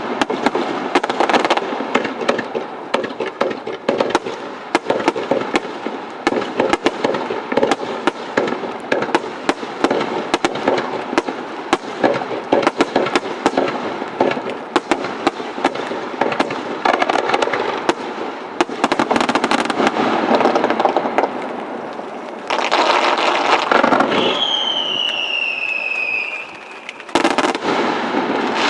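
Aerial fireworks display: dense, continuous crackling and popping of bursting shells, with sharp bangs throughout. Near the end a falling whistle lasts about two seconds.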